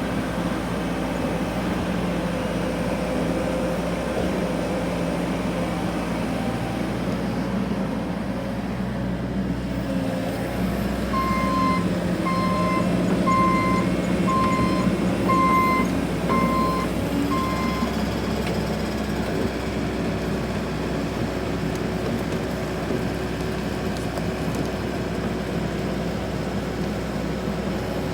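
Excavator's diesel engine running steadily. Partway through, a backup alarm beeps seven times, about once a second.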